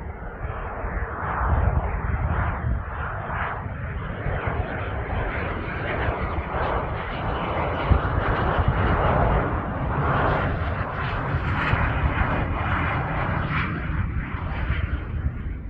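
Cessna 560 Citation Ultra business jet's twin Pratt & Whitney Canada JT15D turbofans running, a continuous rushing jet noise over a low rumble that grows brighter about two-thirds of the way through.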